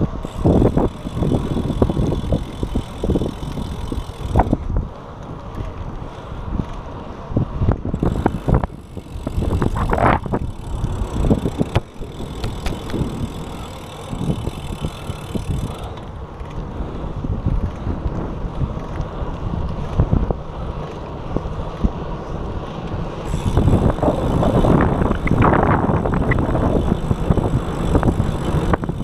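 Wind buffeting the microphone of a GoPro action camera on a moving bicycle: an uneven low rumble that surges and drops irregularly.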